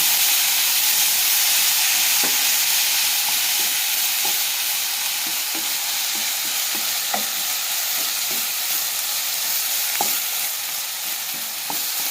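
Chopped greens in a wet coconut paste sizzling in a hot pan as they are stirred. The stirring utensil knocks and scrapes lightly against the pan now and then.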